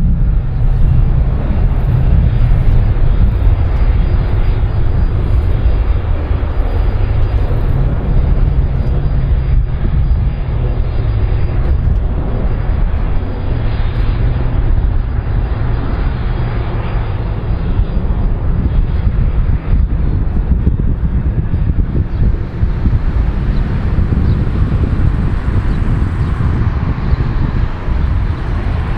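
Aircraft engines running: a loud, steady low rumble with a thin high whine that fades out about three quarters of the way through.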